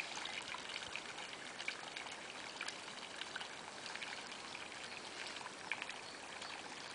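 A thin jet of water spraying up out of the lawn: a steady hiss of running water with small scattered splashes as it lands.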